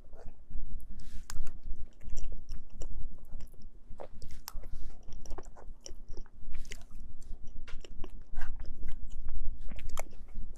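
Close-miked eating sounds of someone biting and chewing mousse cake, with many small irregular mouth clicks and smacks.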